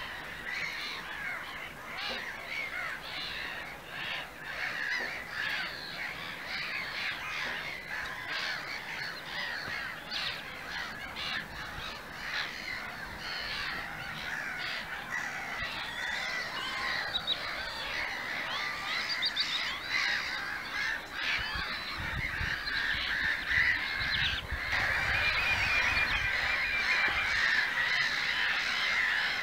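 A continuous din of many birds calling over one another, the raucous chorus of a black-headed gull colony on a wetland, growing a little louder near the end. A low rumble joins in for a few seconds past the two-thirds mark.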